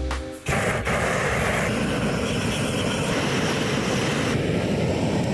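Handheld gas torch fed from an LPG cylinder, burning with a loud, steady rushing noise as its flame is pushed into a pile of split firewood to light it. It starts about half a second in, as music cuts off.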